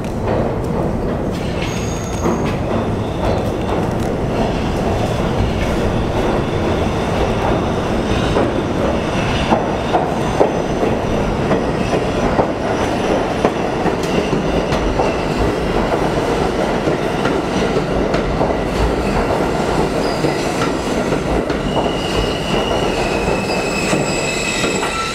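Alstom R160A subway train pulling slowly into an underground station: a steady rumble of wheels on rail with a few sharp clacks over the rail joints. A high squeal comes in near the end as it slows to a stop.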